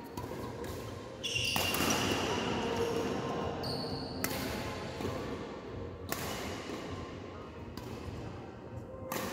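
Badminton rackets striking a shuttlecock in a doubles rally: about four sharp hits a second or two apart, echoing in the hall, with brief high squeaks of shoes on the court.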